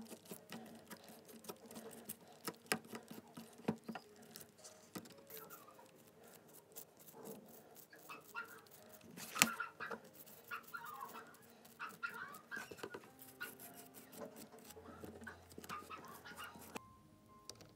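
Hand work on a small model car: an irregular run of light clicks and taps, with short squeaks in the middle and one sharper click about halfway through.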